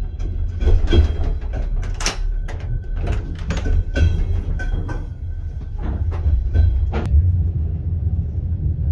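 Steady low rumble of a moving passenger train carriage, with a run of clicks and knocks as the toilet cubicle's door is opened; the knocking stops about seven seconds in and the rumble carries on.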